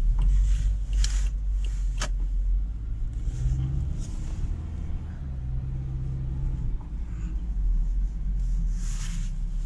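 Car driving over bumps, heard from inside the cabin: a steady low road and engine rumble with a few short, sharp creaks, the clearest about two seconds in and another near the end. The creaks come from the front suspension around the left shock absorber, a creak that is strong in frost and absent in summer.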